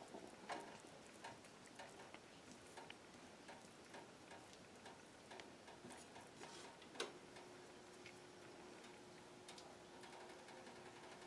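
Near silence with faint, irregular small ticks and clicks, one sharper click about seven seconds in, followed by a faint steady hum.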